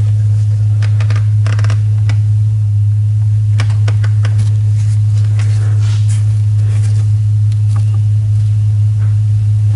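Scattered light clicks and short rubbing sounds as the inner filter element of a John Deere 5075E's air cleaner is pushed into its housing and seated, over a steady low hum.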